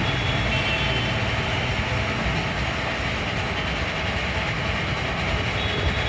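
Lathe running with a steady mechanical noise that does not let up, a few faint high tones over it.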